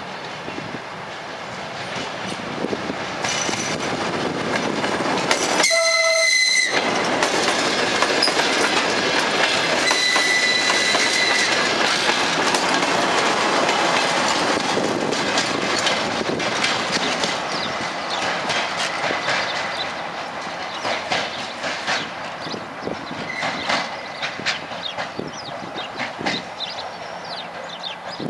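DR1A diesel multiple unit approaching and passing: the rumble of its engine and wheels swells, peaks as it goes by and fades away. One horn blast of about a second sounds about six seconds in, and the wheels click over the rail joints as the cars pass.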